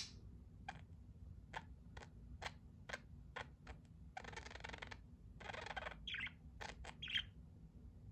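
Budgerigar giving faint short chirps and clicks, with two longer scratchy chattering stretches about halfway through.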